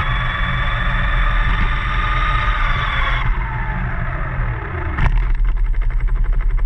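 Scale model car running: a high motor whine that drops in pitch from about three seconds in, then a sudden knock about five seconds in followed by a fast, even rattle.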